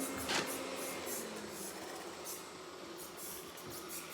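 Roborock Qrevo S robot vacuum running across the floor: a steady motor hum with brush scuffing, a short sharp sound about a third of a second in and brief hissing scrapes later on.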